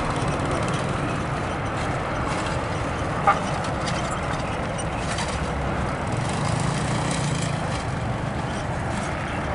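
Bus engine idling steadily, with one short sharp sound about three seconds in.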